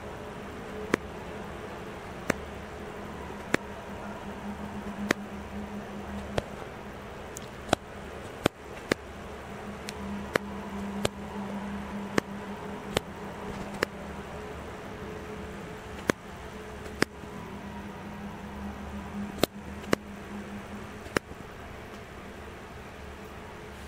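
Camera command dials clicking through their detents one step at a time as the shutter speed and ISO are changed: about twenty sharp single clicks, roughly a second apart at uneven intervals. A steady low hum runs underneath.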